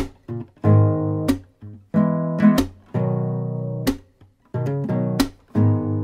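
Guitar music: chords strummed in short bursts, each sharply struck and then cut off, with brief gaps between them, about one chord a second.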